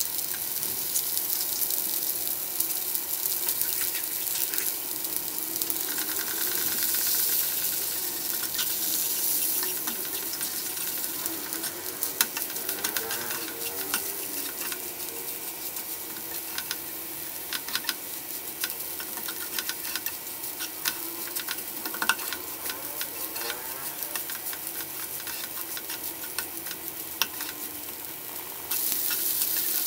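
Egg and drumstick leaves sizzling in a frying pan while a slotted spatula stirs and scrambles them, with frequent clicks and scrapes of the spatula against the pan.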